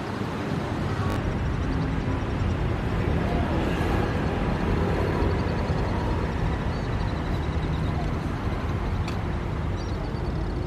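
Steady outdoor background noise of a city waterfront: a low, even rumble of distant traffic, with no single sound standing out.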